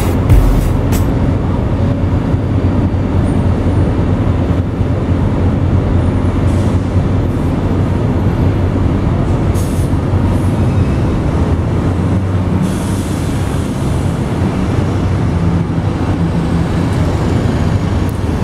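Steady low mechanical drone of a ship-to-shore gantry crane's machinery running as it lowers a heavy transformer, with a few faint knocks.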